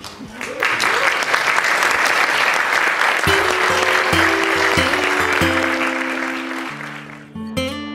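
Audience applause that starts about half a second in, holds steady, then fades near the end. Music with held notes comes in under it about three seconds in.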